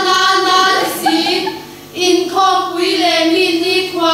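Mixed group of young women and men chanting a Mizo recitation in unison, voices held on steady, sung-like pitches. The phrase breaks off briefly about two seconds in before the next begins.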